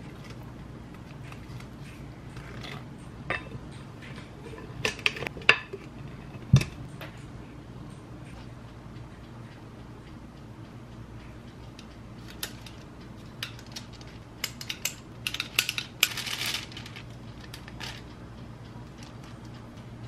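Clinks and scrapes of kitchen utensils: a whisk working brownie batter in a glass mixing bowl, then a metal cookie scoop clicking and scraping as dough is portioned onto a baking tray. There is one sharp knock about six and a half seconds in, over a steady low hum.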